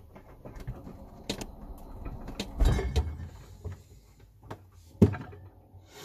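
A refrigerator being handled and its door opened, heard from inside the fridge: a string of clicks, knocks and rattles, with a cluster a little before the middle and one loud clunk about five seconds in.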